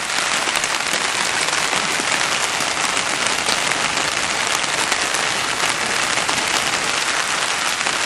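Steady rain falling outdoors, a loud even hiss with no break.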